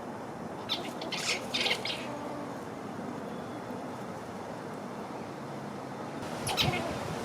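Grey squirrel giving its defence (alarm) call: a quick series of short chattering calls about a second in, and another series near the end.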